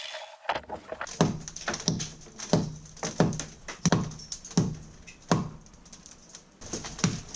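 Hand hammer striking a steel chisel into cut pebbledash render, about seven sharp ringing knocks at a steady beat, a brief pause, then more knocks near the end. The concrete cutter's blade winds down at the very start.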